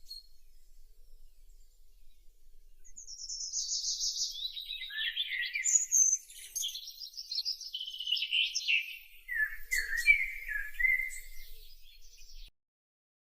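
A bird singing: runs of quick chirping notes that tumble down in pitch, repeated several times, then cut off abruptly near the end.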